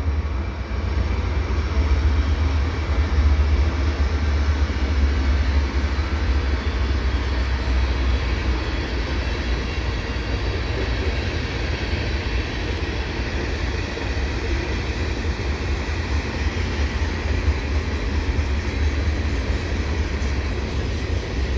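Canadian Pacific freight train passing, led by AC4400CW and ES44AC diesel locomotives: a deep steady rumble of the locomotives gives way to the steady rolling noise of freight cars on the rails.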